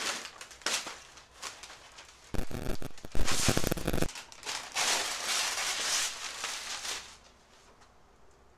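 Masking paper and masking tape being peeled off a freshly painted car's front end: crackling and crumpling of paper, with a few small snaps at first, loudest a little before halfway, then a softer rustle that stops about a second and a half before the end.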